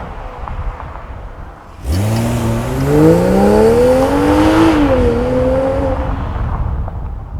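BMW X6 40i's B58 turbocharged 3.0-litre straight-six with a cat-less downpipe, accelerating hard. After a quieter, fading spell, the exhaust note comes in sharply about two seconds in and climbs steadily in pitch. It dips briefly past the middle, then holds and fades toward the end.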